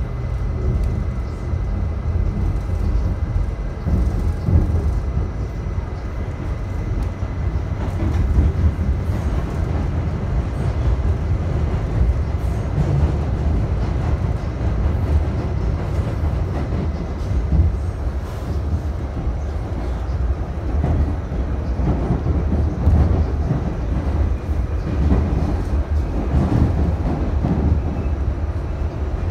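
R68A subway car running at speed, heard from inside the car: a steady low rumble of wheels on track with scattered clacks. A faint high whine fades out after several seconds.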